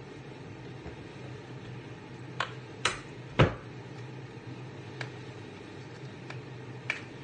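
Clicks, crinkles and knocks of a small stock-cube box and wrappers being opened and handled, the loudest a knock about three and a half seconds in, over a steady low hum.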